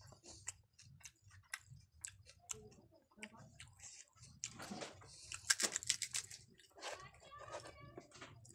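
Close-miked chewing of pani puri: crisp puri shell and filling crunching between the teeth amid wet mouth clicks, with a louder burst of crackling a little past the middle.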